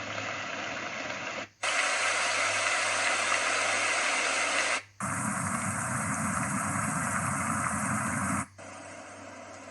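White noise machine playing its recorded rain sounds, a steady hiss, switched to a different rain track three times: the sound cuts out for an instant and changes character about a second and a half, five and eight and a half seconds in, the last track noticeably quieter.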